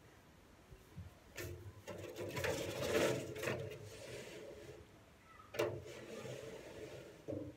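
A wheelbarrow being scraped out with a long-handled garden tool: rasping scraping strokes start about a second and a half in. A sharp knock comes a little after five seconds, and the scraping picks up again near the end.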